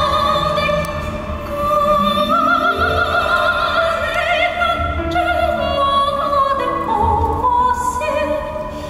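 A high male voice singing a slow, sustained melody live with wide vibrato, over orchestral accompaniment with a soft low beat about every two seconds.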